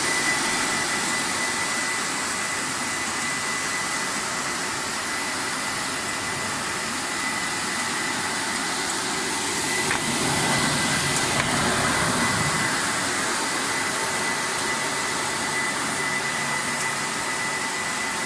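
Continuous deep-frying machine running: a steady hiss with a thin, steady high whine, swelling slightly for a few seconds midway.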